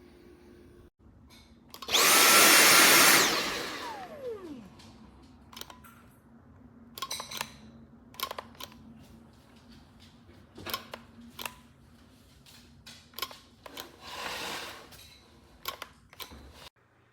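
Dyson V7 Animal cordless stick vacuum switched on briefly on its replacement battery: the motor runs with a loud, steady high whine for about a second and a half, then winds down with a falling pitch once the trigger is let go. Scattered clicks and knocks of handling follow, with a short hiss near the end.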